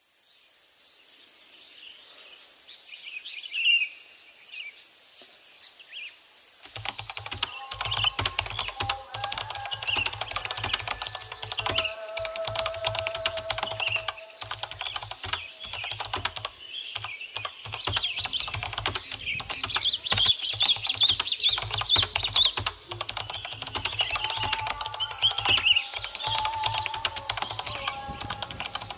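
Rapid keyboard typing clicks, a sound effect for on-screen text typing itself out, starting about seven seconds in. Birds chirp throughout, with steady high-pitched tones in the first seconds.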